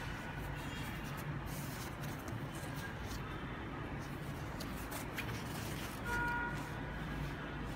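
Fabric shell of a parka rustling and scuffing as it is handled close to the microphone, over a steady low hum. A short tone sounds briefly about six seconds in.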